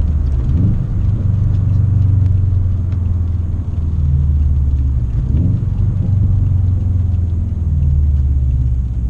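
2013 Subaru WRX's turbocharged flat-four engine and exhaust heard from inside the cabin, running through downshifts with a steady low drone and two brief rising revs, about half a second in and again about five and a half seconds in. The exhaust note is pretty quiet inside the car.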